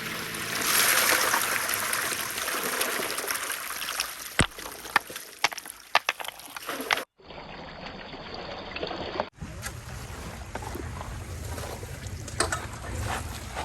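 Water running and trickling, with a run of sharp clicks partway through. The sound cuts off abruptly about halfway and changes character twice.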